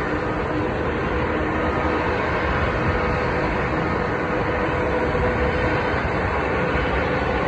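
Airbus A220-300's Pratt & Whitney PW1500G geared turbofan engines running at idle after pushback. It is a steady rumble with a held hum tone and no change in pitch.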